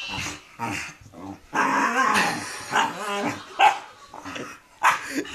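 Excited dog growling and yapping in a run of short bursts, with a longer growl about one and a half seconds in.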